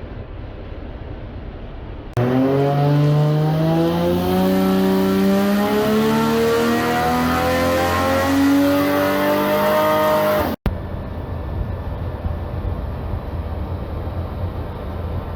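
Nissan Stagea's RB-series straight-six pulling hard under load, its pitch rising steadily for about eight seconds before it cuts off suddenly. A lower, steady vehicle rumble follows.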